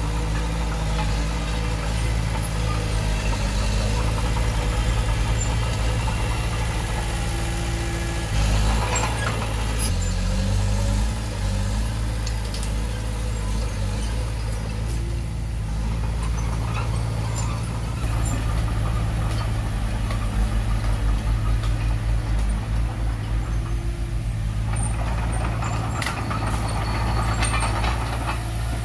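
Engine of heavy earthmoving equipment running steadily, its pitch shifting about a third of the way in, with stretches of noise laid over it around nine seconds in and near the end.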